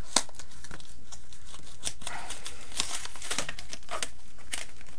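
Yu-Gi-Oh! booster double-pack packaging crinkling and tearing as it is opened by hand: a run of irregular crackles.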